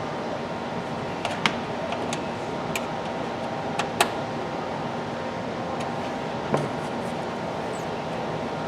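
Steady hum with a handful of sharp clicks and taps, the sharpest about a second and a half and about four seconds in.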